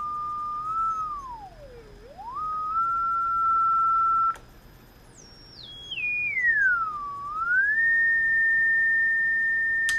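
A pure sine tone from an audio signal generator, played through the speaker of a late-1940s Airline portable tube radio by way of its repaired output transformer. The tone holds steady, swoops down and back up, and cuts off about four seconds in. It then comes back very high, steps and glides down, and settles on a steady note for the last few seconds. A clean tone from the speaker is the sign that the repaired output transformer passes signal again.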